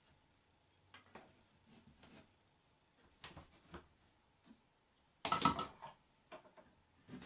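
Quiet handling noises on wooden framing: light scrapes and taps as a pencil marks a 2x4, with one louder scraping rustle lasting under a second about five seconds in.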